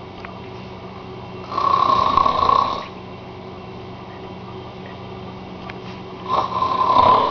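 A man snoring in his sleep: two loud snores about a second and a half long, roughly five seconds apart, over a steady low hum.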